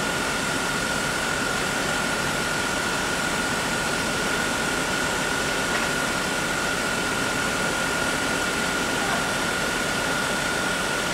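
A machine running steadily: a dense, even hiss with a constant high-pitched whine held above it, no change in pitch or level.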